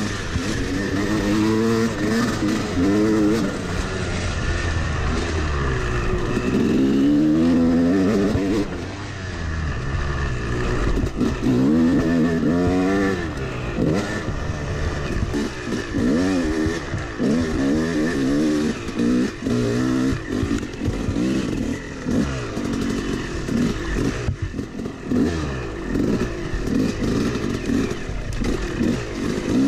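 Yamaha 250 two-stroke dirt bike ridden along a trail, its engine revving up and down over and over as the throttle is worked, easing off for a couple of seconds about a third of the way in. A low rumble of wind on the microphone runs underneath.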